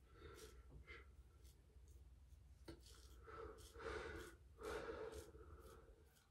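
Faint breathing, with two longer breaths about four and five seconds in, and soft scratching of a safety razor being drawn over lathered stubble.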